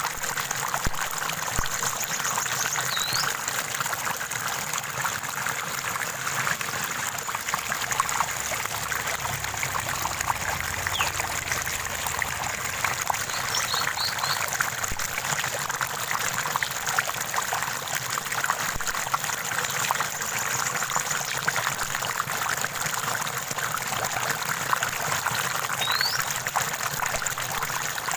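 A small stream running and trickling steadily, with a few brief, high bird chirps heard over it now and then.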